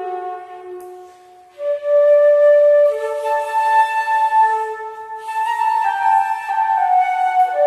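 Flute music: a slow melody of long held notes. A note fades away about a second in, and after a short breath a new note begins.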